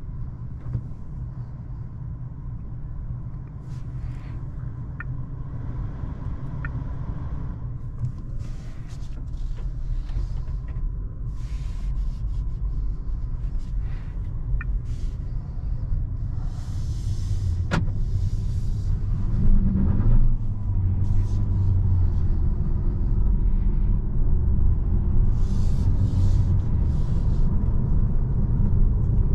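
Low road and tyre rumble inside the cabin of a DS 4 E-Tense hybrid as it drives off, growing steadily louder as it gathers speed. A few faint clicks and several brief bursts of hiss come through.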